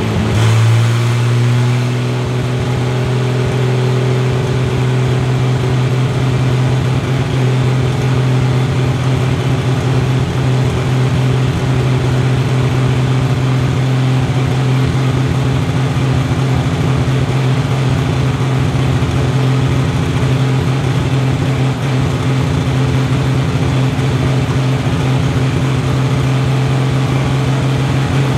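Turbocharged BMW M20 straight-six of an E30 race car, revved up sharply at the start and then held at a steady raised engine speed during dyno tuning. It drops back right at the end.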